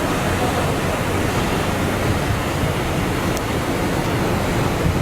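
Steady rushing of wind and water, with wind buffeting the microphone in an uneven low rumble.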